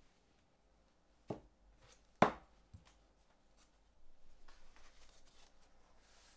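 Workbench handling sounds: two sharp knocks about a second apart, the second louder, with a faint third just after, then light scratching and rustling for about two seconds.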